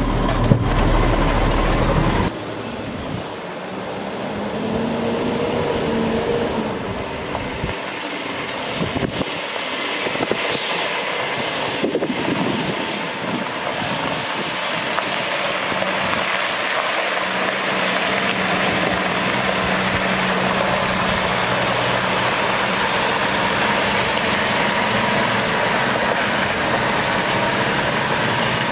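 Cummins ISL diesel engine of a Freightliner M2 water truck, heard briefly from inside the cab as a deep rumble. It then gives way to the hiss of water spraying from the truck's PTO-driven spray heads over the running engine as the truck drives past, the hiss growing gradually louder.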